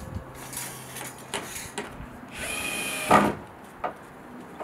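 Metal rose trellis being handled and set against a wooden fence: light clicks and taps, then a scrape lasting just under a second that ends in a loud knock about three seconds in.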